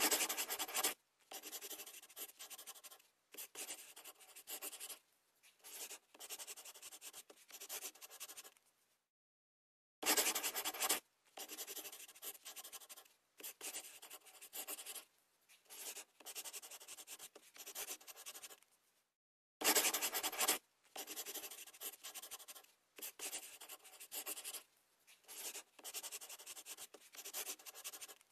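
A yellow crayon rubbing quickly over a cucumber's skin in short runs of rapid strokes. It cuts out briefly twice.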